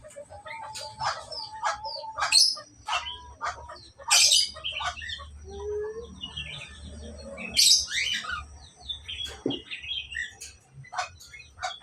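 Budgerigars chattering: a run of quick chirps and warbles with louder sharp calls about four seconds in and again near eight seconds.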